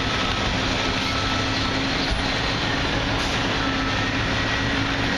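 Steady mechanical drone with a faint constant low hum, unchanging in level, with no pauses or separate strikes.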